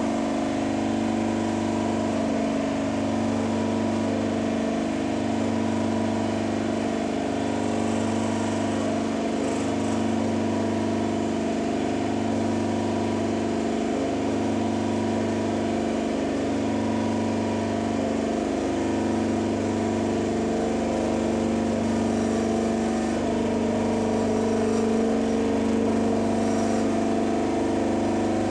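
Hydraulic pump and motor of a universal testing machine running steadily, building hydraulic pressure to load a steel specimen in single shear. A low hum underneath dips briefly about every two seconds.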